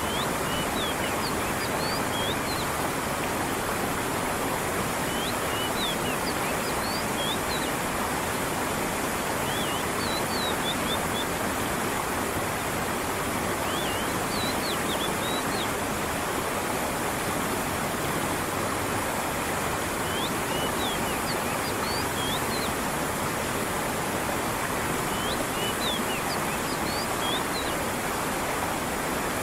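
Steady rush of a flowing stream with falling water, and small clusters of short, high bird chirps every few seconds.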